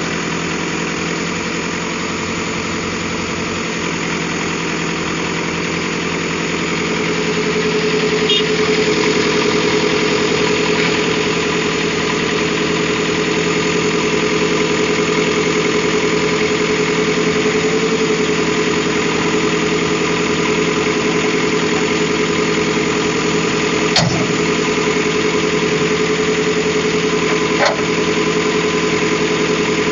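Heavy diesel engine running steadily, growing louder as it revs up a few seconds in, with two sharp knocks near the end.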